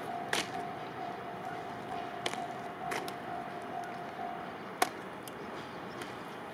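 Japanese level-crossing alarm ringing with a repeating electronic ding, stopping about four and a half seconds in once the freight train has cleared the crossing. Sharp clicks are scattered through it, the loudest one a little before five seconds.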